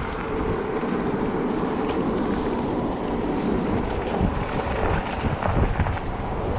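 Wind rushing over a riding camera's microphone, with a mountain bike's tyres rolling on a leaf-strewn tarmac lane.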